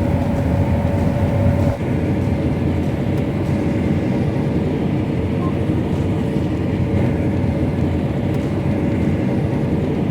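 John Deere S680 combine running steadily while harvesting wheat, heard from inside the cab: a dense low drone of engine and threshing machinery with a faint steady whine on top.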